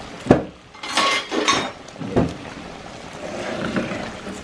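Wooden spoon stirring chicken pieces through a simmering cream sauce in a metal pan: wet sloshing with four or five knocks of the spoon in the first couple of seconds, then a steadier simmer.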